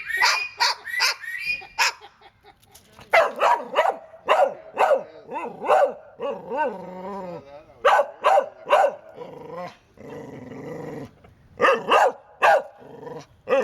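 A dog and a white parrot trading barks, the parrot mimicking the dog: runs of short, sharp barks, with a falling whine-like call about six seconds in and a longer rasping sound around ten seconds.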